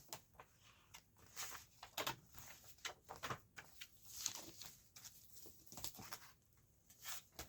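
Faint handling noises: scattered light rustles and soft clicks as paper items are moved about.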